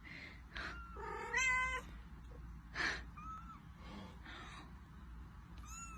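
A cat meowing in several short calls, the loudest about a second and a half in.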